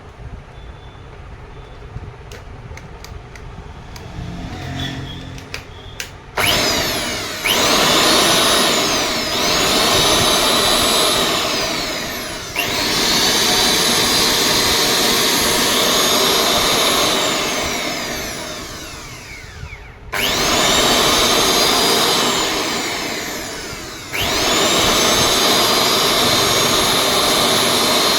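Electric wood planer's motor switched on several times, each time spinning up to a high whine, running for a few seconds and then winding down before the next start. The first few seconds hold only faint clicks.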